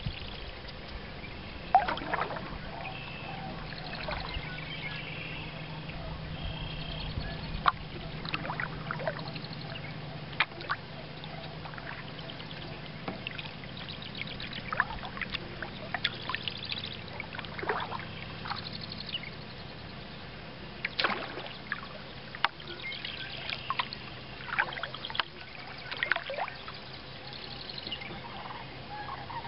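Kayak paddle strokes: water splashing and dripping off the paddle blade every few seconds, over the lapping of the kayak through the water and a low steady hum. Short bird chirps come near the start.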